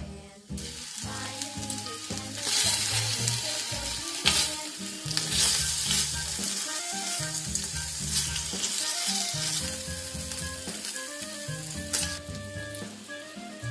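Sliced pork frying in a clay donabe pot, a steady sizzle that starts about half a second in and is loudest for the next few seconds while the pieces are stirred with wooden chopsticks. Background music plays underneath.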